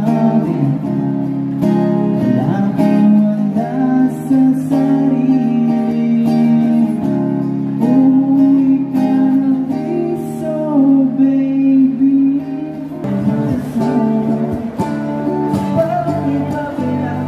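Man singing into a microphone while playing an amplified guitar. About thirteen seconds in, a different singer and song take over.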